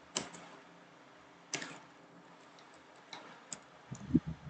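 A few sparse, sharp clicks of computer keys, about a second or more apart. Near the end comes a cluster of low thumps, louder than the clicks.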